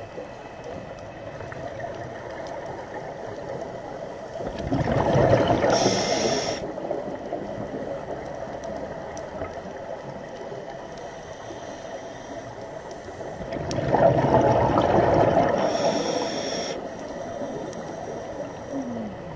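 Scuba regulator exhalations underwater: two bursts of bubbling from exhaled air, each lasting two to three seconds and about nine seconds apart, over a faint steady underwater hiss.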